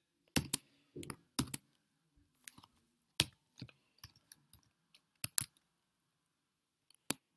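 Computer keyboard keystrokes while typing code: scattered, irregular clicks with short pauses between them and a longer lull before a last couple of keystrokes near the end.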